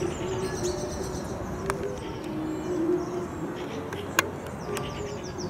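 Birds calling in leafless woodland: small songbirds give short high chirps and trills over low cooing notes from a dove or pigeon. A few sharp clicks cut through, the loudest a little after four seconds in.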